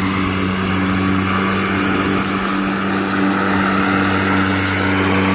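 Cordless electric lawn mower running, its motor and spinning blade giving a steady hum with a whooshing rush over it.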